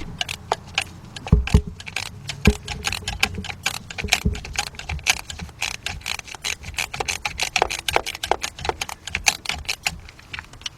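Quarter-inch drive ratchet clicking in rapid, uneven strokes as it works a 7 mm deep socket on a hard-to-reach distributor cap screw, with a couple of dull knocks of metal tools in the first few seconds.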